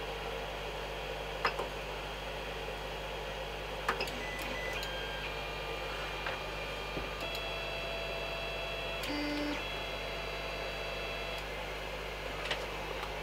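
Creality CR-10S 3D printer's stepper motors whining as the axes move, the whine's pitch switching in steps several times, with a few sharp clicks.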